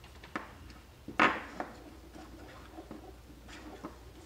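Handling noise of small plastic electronics parts: a dog-collar housing and circuit board clicking and knocking against a wooden bench, with one sharper knock about a second in and a few lighter clicks.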